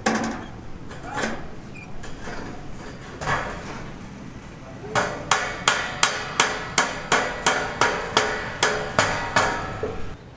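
Hammer blows: a few scattered knocks, then from about five seconds in a steady run of about fourteen strikes, roughly three a second, each with a short ring.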